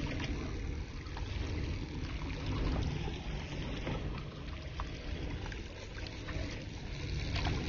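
Steady outdoor water and wind noise: water washing at the shoreline over a low rumble, with a few faint clicks scattered through it.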